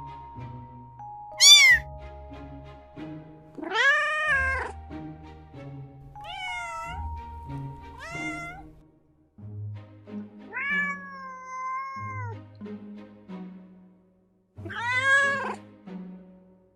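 Domestic cats meowing: about six separate meows, one of them long and drawn out near the middle, over background music.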